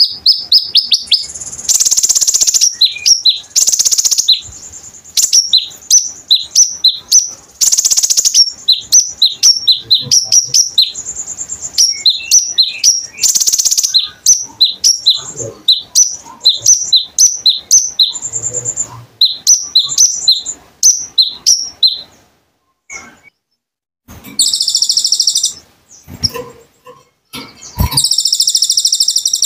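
Konin songbird singing: long runs of quick, high, sharp chirps, a few each second, broken by several short harsh hissing bursts. The chirping stops about two-thirds of the way through, and two longer hissing bursts follow near the end.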